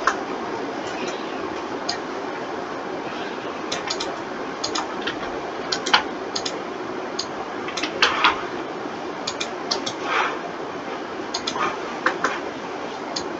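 Irregular clicks of a computer mouse and keyboard, single and in small clusters, over a steady background hiss.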